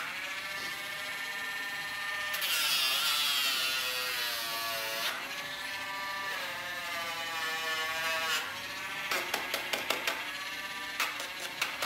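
Dremel-style rotary nail grinder running with a steady whine, its pitch sagging and a grinding hiss added for a couple of seconds as it bears on a dog's nail. It goes quiet about eight seconds in, followed by a few light clicks.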